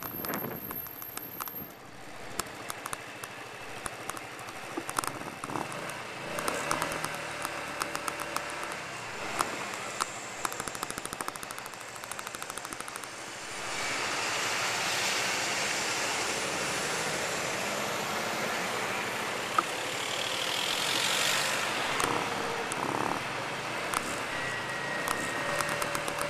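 Traffic at a city road junction: cars passing, with one louder passing swell building from a little before halfway and fading away after about three quarters of the way in. A rapid patter of small sharp clicks runs throughout.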